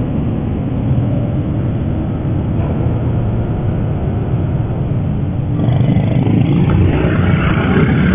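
Motorcycle engine idling, picked up by a helmet-mounted intercom mic, then about five and a half seconds in growing louder with a rushing hiss as the bike pulls away.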